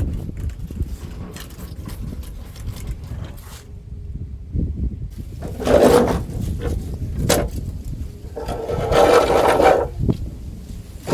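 A steel lawn mower deck being moved across the floor, with knocks, rumbling and two louder scrapes about six and nine seconds in.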